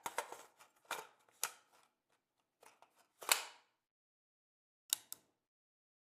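A series of sharp clicks and snaps at uneven intervals, the loudest about three seconds in and a quick pair near the end.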